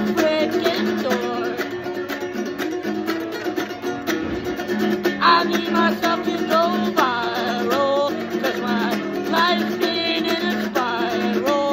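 Small-bodied acoustic guitar strummed in a repeating chord pattern, with a man singing a freestyle over it.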